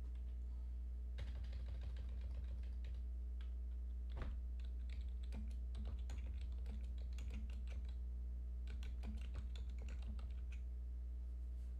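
Typing on a computer keyboard: a run of irregular keystroke clicks starting about a second in and stopping near the end, over a steady low electrical hum.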